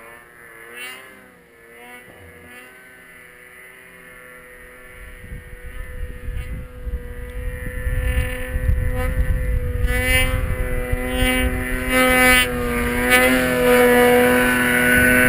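Snowmobile engine running with a steady drone. It is faint at first and grows much louder from about five seconds in, with a deep rumble as the sled comes close or is throttled up.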